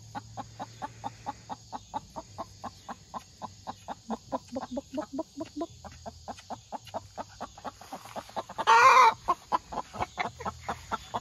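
Laying hens clucking in a rapid run of short notes, about five a second. One loud cry about half a second long comes nearly nine seconds in.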